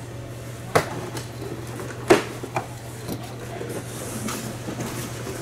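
Long cardboard rifle box being handled and cut open: a few sharp knocks and scrapes of cardboard, the loudest about two seconds in, over a steady low hum.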